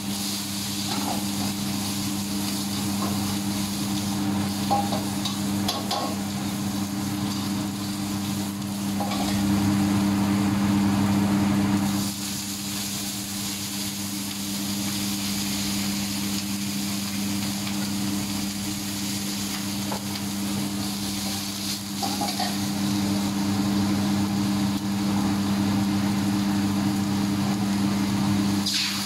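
Stir-frying in a wok over a gas burner: food sizzling while a metal ladle stirs and now and then knocks against the wok, over a steady low hum. Near the end water is poured into the hot wok.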